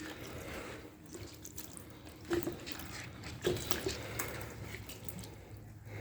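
Water poured from a bottle splashing and running down a car windshield, with a few sharper splashes or knocks a couple of seconds in and again about a second later. The water is being run over a newly re-sealed windshield to test it for leaks.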